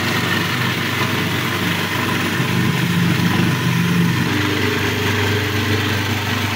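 A small electric motor running steadily with a hum, its pitch shifting slightly about four seconds in.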